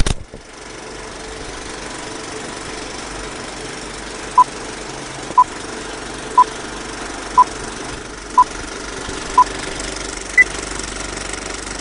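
Old film projector running with a steady mechanical rattle under a film-leader countdown: a loud click at the start, then six short beeps one second apart, followed by a single higher beep.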